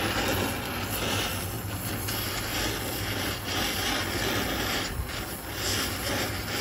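Gas welding torch flame hissing steadily as it plays on a steel cylinder, with a steady low hum underneath.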